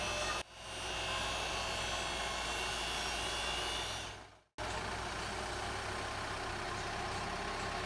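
Mahindra pickup tipper's engine running steadily while its hydraulic hoist tips the load-bed to dump sand. The sound drops out briefly about half a second in and again near the middle.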